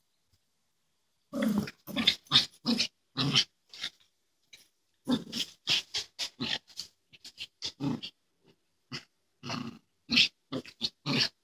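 Small terrier play-growling in short, quick bursts as it wrestles with a cat, starting about a second in.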